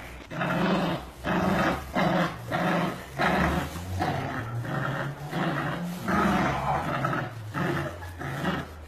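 Pit bull-type dogs, an adult and a puppy, play-growling in a tug-of-war over a cloth: a run of short growls, about three every two seconds.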